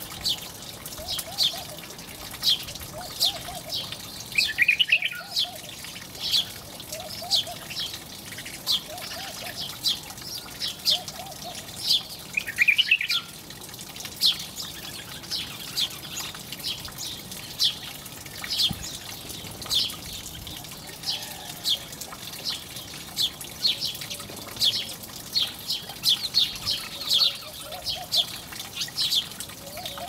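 House sparrows chirping continuously, a rapid scatter of short high chirps. A lower call repeats about once a second through the first half, and two louder calls stand out near five and thirteen seconds in.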